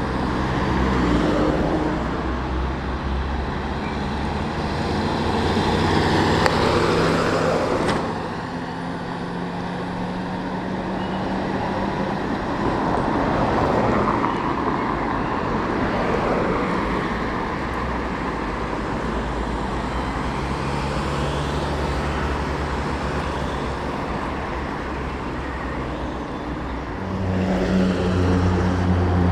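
Several road vehicles driving past one after another, their engines humming steadily while the tyre and engine noise swells and fades as each one goes by.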